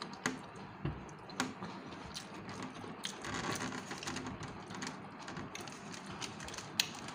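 Eating noises: scattered wet clicks and smacks of chewing and finger-licking, with soft handling noises as fingers pull apart a cooked tulingan fish on a foil tray.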